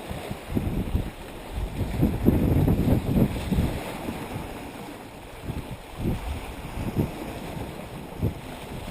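Wind buffeting the microphone in uneven gusts, a low rumble that swells and fades, loudest around two to three seconds in.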